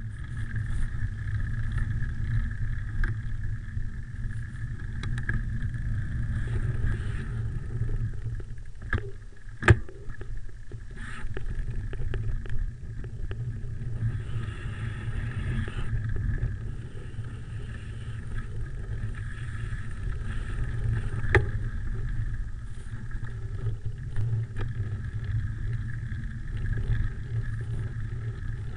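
Low rumble of wind on the handlebar-mounted camera's microphone and a bicycle rolling over a gravel path, with a few sharp knocks, the loudest about ten seconds in and another about twenty-one seconds in.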